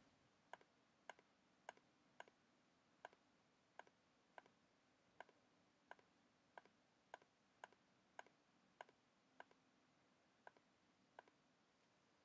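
Faint computer mouse-button clicks, one roughly every half second and a little sparser near the end, as edges are shift-clicked one at a time to select them.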